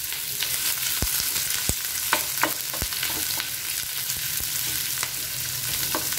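Sliced onions and green chillies sizzling in hot coconut oil in a coated frying pan while a spatula stirs them, knocking against the pan about half a dozen times in the first three seconds.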